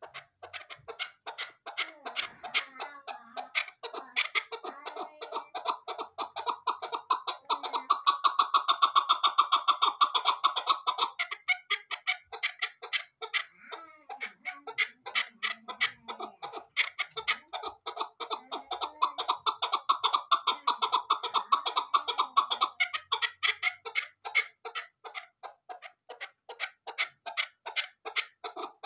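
Caged chukar partridge calling: a long run of rapid, repeated chuck notes that swells twice into louder, denser bursts of its rally call, about a quarter of the way in and again about two-thirds through.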